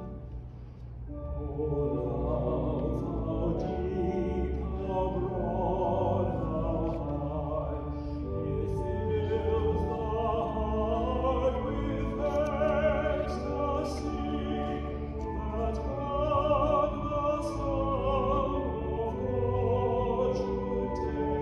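Music: a solo voice singing with vibrato over sustained accompanying chords, coming in about a second in after a brief lull.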